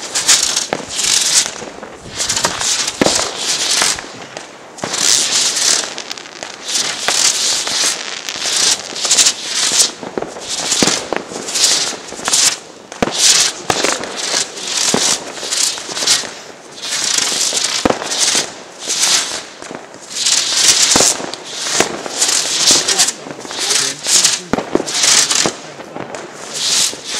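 Fireworks going off in quick succession: sharp bangs about once a second, each followed by a loud crackling hiss.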